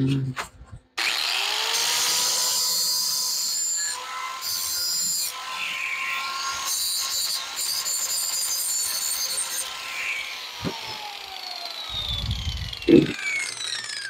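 Handheld angle grinder switched on, its whine rising to full speed, then grinding metal in uneven passes. About ten seconds in it is switched off and its pitch falls as the disc winds down, with a knock near the end.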